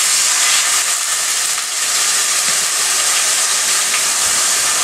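Dry-rubbed chicken pieces searing in a hot oiled pan: a loud, steady sizzle.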